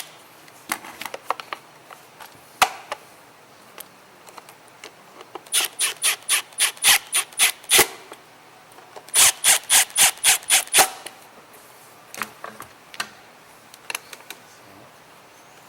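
Hand-tool work on an Echo ES250 blower: scattered single clicks, then two runs of sharp, evenly spaced metallic clicks, about five a second, each run lasting two seconds or so.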